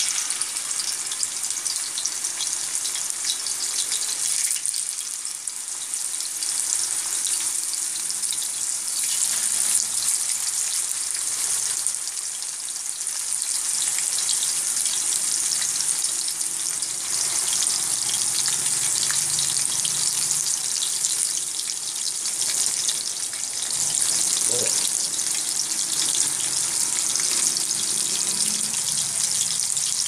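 Masala-coated parrot fish pieces shallow-frying in hot oil on a tawa: a steady sizzle with fine spattering crackles throughout.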